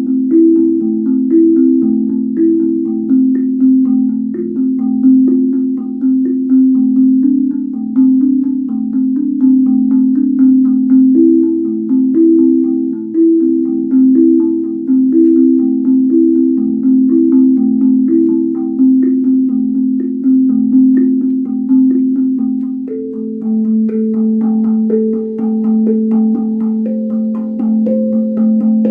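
Guda steel tongue drum played by hand: a steady stream of struck, ringing low notes that overlap and sustain. A higher note joins in over the last several seconds.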